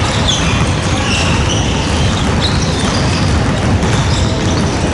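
Basketball game ambience in a gymnasium: a steady noisy din with short high squeaks, like sneakers on the hardwood court, and a basketball bouncing.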